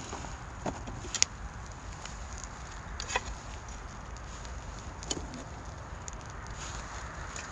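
Pine cones burning in a shichirin clay brazier as the fire is tended, with a few short sharp clicks and pops (about a second in, around three seconds, and again near five seconds) over a steady hiss.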